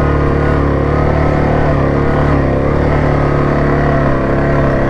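Yamaha Grizzly 700 ATV's single-cylinder four-stroke engine running steadily under load as the quad climbs a steep trail in four-wheel drive.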